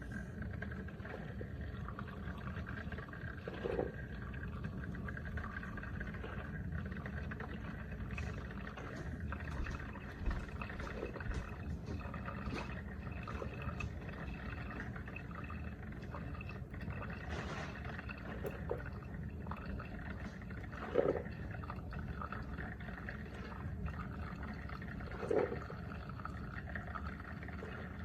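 Mr. Coffee Iced and Hot single-serve coffee maker brewing: a steady low hum with liquid trickling and a few brief, louder gurgles.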